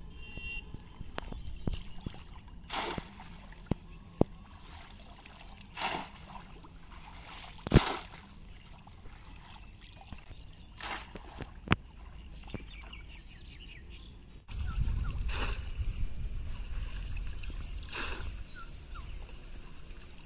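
Shallow river water splashing and sloshing as a bamboo polo fish trap is worked in it and lifted out dripping, with a few sharp splashes scattered through. About two-thirds of the way in, a louder low rumble comes in.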